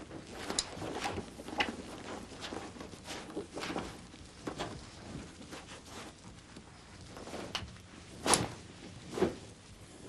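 Rustling of a flying suit and life jacket with scattered small clicks and knocks of clips and buckles being fastened, and two louder knocks near the end.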